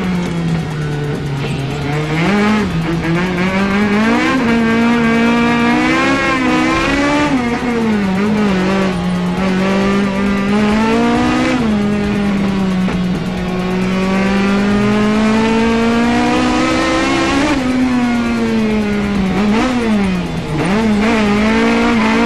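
Naturally aspirated Toyota Corolla KE72 wagon's four-cylinder engine driven hard while drifting, its pitch rising and falling again and again with sharp dips as the throttle comes on and off, with tyres squealing at times.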